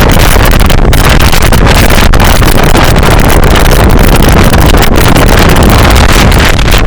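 Loud, steady wind buffeting the microphone on the roof of a moving bus.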